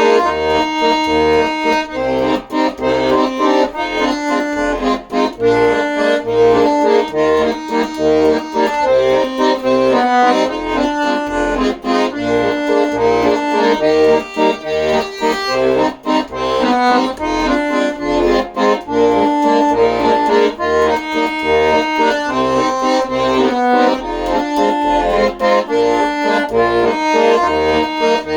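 Instrumental music with an accordion-like lead melody in held notes over a steady, regularly pulsing bass line.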